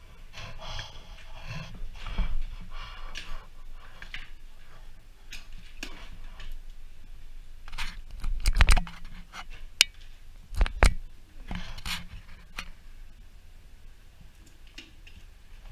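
Hands working a folded-up steel lattice jail bunk and a fitting on its frame: scraping, light clicks and a few sharp knocks, the loudest about halfway through.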